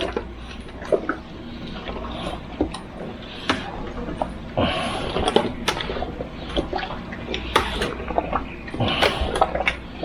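Raw chicken pieces being mixed by hand in a thick mustard and hot sauce marinade: irregular wet squelching and slapping with small clicks.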